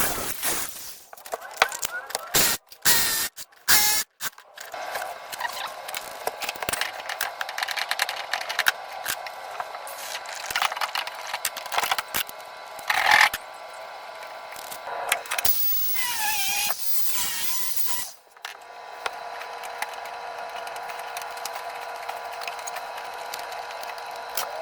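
A run of sharp clicks and knocks, then a steady mechanical whir that drops out briefly about three quarters of the way through and resumes.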